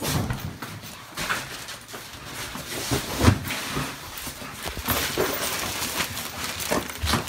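Footsteps and a handheld phone rubbing against clothing, with scattered knocks and a low thump about three seconds in.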